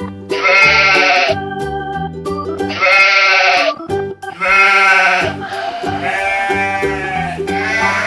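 A sheep bleating about five times, each bleat lasting roughly a second, over a steady children's background tune.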